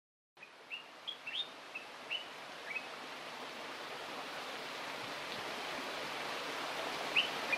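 Outdoor ambience: a steady hiss of background noise that begins just after the start and slowly swells, with short, quick bird chirps during the first few seconds and again near the end.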